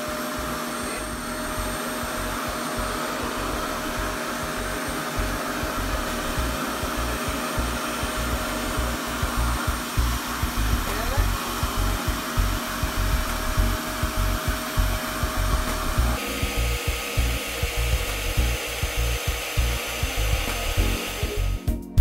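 ReVair reverse hair dryer, a vacuum-type dryer that draws air and hair into its hood through a hose from the base unit, running on its low setting: rushing air under a steady motor whine. About sixteen seconds in, the whine drops to a lower pitch.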